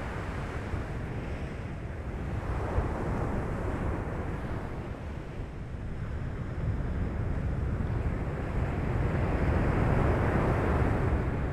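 Underwater ambience: a low, steady wash of moving seawater, swelling louder about three seconds in and again near the end.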